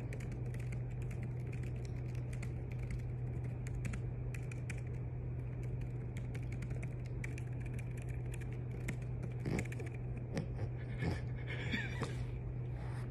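Fingers typing on a laptop keyboard: a quick, uneven run of light key clicks over a steady low hum, with a few slightly louder noises near the end.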